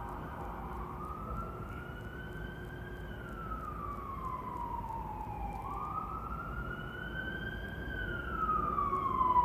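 Emergency vehicle siren wailing, its pitch slowly rising and falling about twice, over a steady low background noise.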